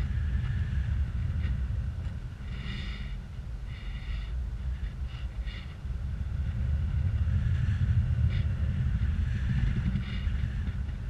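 Wind buffeting the camera's microphone in flight under a tandem paraglider, a steady deep rumble that swells past the middle. Several short, high-pitched tones come and go over it.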